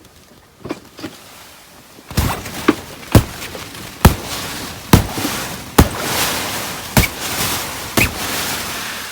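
Footsteps crunching through frozen snow, about one step a second, starting about two seconds in.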